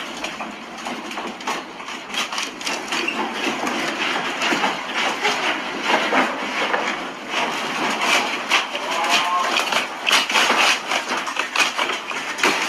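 Objects and fittings in a room rattling and knocking as the building shakes in a strong earthquake: a steady clatter dense with sharp knocks.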